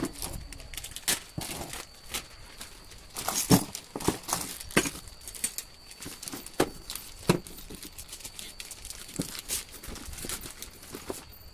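Clear plastic accessory bags crinkling and rustling as they are handled, with the screws and stand parts inside knocking and clicking in irregular taps.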